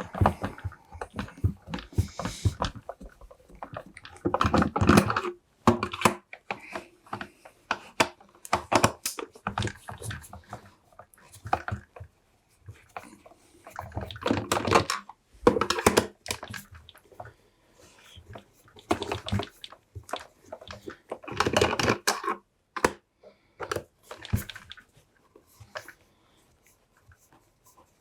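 Screws being taken out of a plastic vacuum cleaner housing: clicks, rattles and scraping of the screwdriver, screws and plastic case. These come in short bursts of about a second every few seconds, with single clicks between them.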